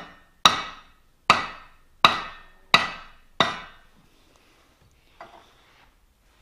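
Five sharp hammer taps on a cast iron vise body, about one every 0.7 s, each ringing briefly, then a faint knock. The loosely clamped casting is being tapped over to bring it square under a dial indicator.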